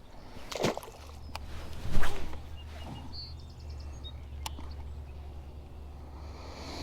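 A sharp knock about two seconds in, over a low steady hum that starts about a second in, with a few faint bird chirps.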